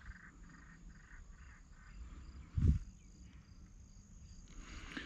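Insects chirping in an even pulsing rhythm, about two to three chirps a second. There is a single short low thump a little past halfway.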